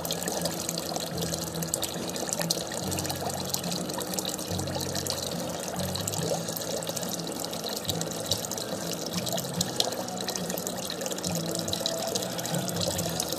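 Steady rain falling and splashing, a dense patter of drops, with a low hum coming and going underneath.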